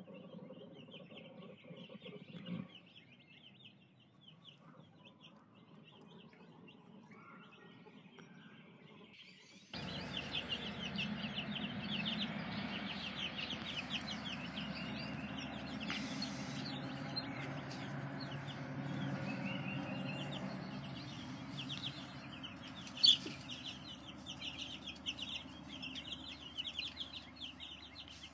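A horse asleep on the ground snoring faintly, with birds chirping. About ten seconds in the sound cuts abruptly to a louder mix of fast chirping and clucking over a low rumble, with one sharp click near the end.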